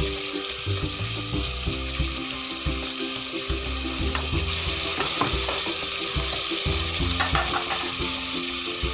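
Mutton liver and offal pieces sizzling in hot oil with onions and tomatoes in a pot, with a few short knocks about halfway through and again near the end. Background music with a steady beat plays underneath.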